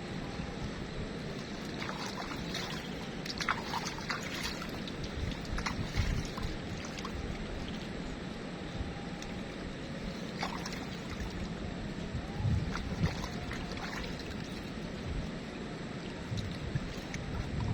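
Steady rush of flowing river water, with a few brief clicks in the first few seconds.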